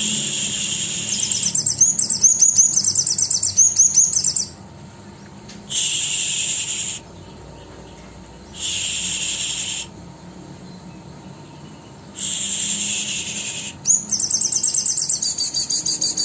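Sogon songbird singing gacor (persistently) with its isian (fill-in) phrases: fast runs of high repeated notes, about eight a second, alternating with several high, even, cricket-like buzzes, each a second or so long.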